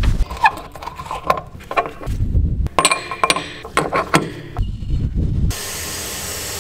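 Metal key knocking, scraping and clicking against a narrowboat's water-tank deck filler cap as it is worked open: a run of sharp metallic clicks with brief ringing, with a few duller thuds. Near the end a steady hiss takes over.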